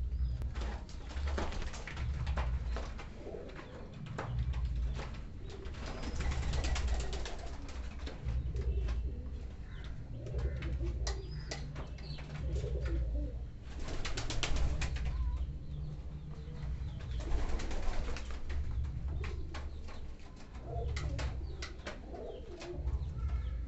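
Young Muski pigeons cooing in a wire-mesh cage, low wavering calls coming again and again, with scattered clicks and rustles from the birds shifting on their perch.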